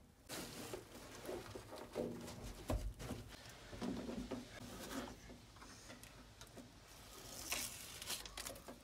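Faint handling noises of tape being laid and pressed down along carpet in a truck bed: soft rubbing and scraping with a few small knocks, one dull thud just before the middle, and a short rasp near the end.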